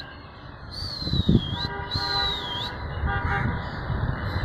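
City ambience: a steady low rumble of traffic with distant vehicle horns tooting briefly, and a high whistling tone that dips and rises again, twice.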